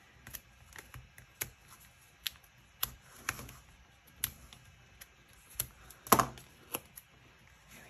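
Scattered light taps and clicks of hand paper-crafting: cardstock and foam adhesive dimensionals being handled and pressed down on a work surface. About ten separate taps, the loudest a little after six seconds.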